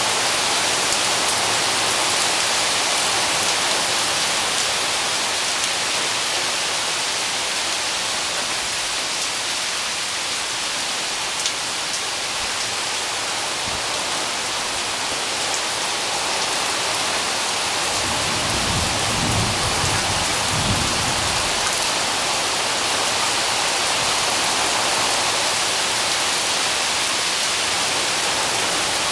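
Steady rain falling during a thunderstorm, with a low rumble of thunder rising about two-thirds of the way through and lasting a few seconds.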